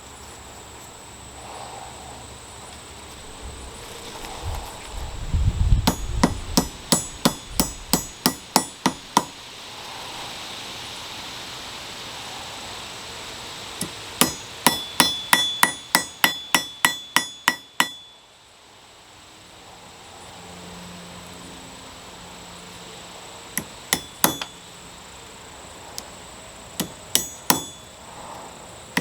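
Hand hammer striking metal in runs of quick blows, about three a second, some with a clear metallic ring, then a few scattered blows near the end.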